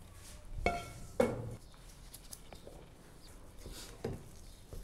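Plastic slotted spatula scraping mashed potato filling and knocking against a glass bowl: a few soft knocks, the loudest about a second in, some followed by a short ringing note.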